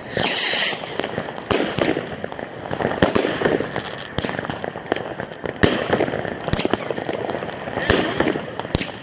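Consumer fireworks going off: a brief hiss at the start, then a string of sharp bangs at uneven spacing, about one a second, as shots burst in the air.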